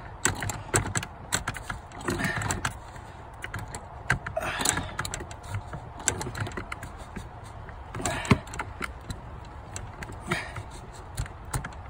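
Hand ratchet clicking in short bursts every couple of seconds as it tightens the socket on the diesel fuel filter housing lid.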